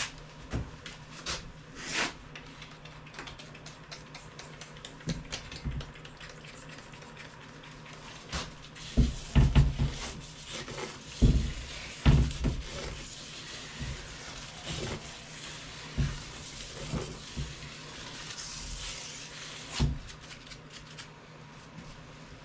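Scattered knocks and clunks as a spoked motorcycle wheel with its tire is flipped over and handled, while soapy water is worked onto the tire bead. There is a faint hiss near the end.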